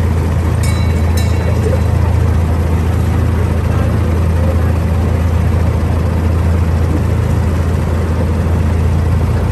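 Miniature amusement-park train running along its track, a steady loud low drone from its drive, heard from a passenger car. Two short sharp ticks come about a second in.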